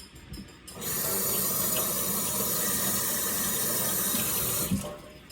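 Kitchen tap running steadily for about four seconds while a peach is rinsed under the stream, then shut off.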